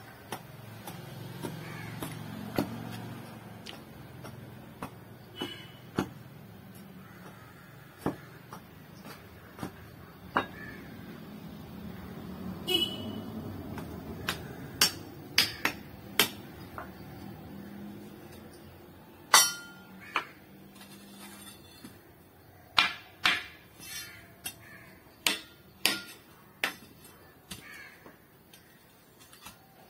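Irregular sharp knocks and clinks, a few of them ringing briefly, scattered unevenly with gaps of a second or more; the loudest comes about two-thirds of the way through.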